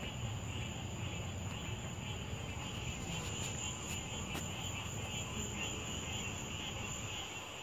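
Night-time insect chorus, crickets trilling steadily in a shrill, unbroken band, over a low steady background rumble.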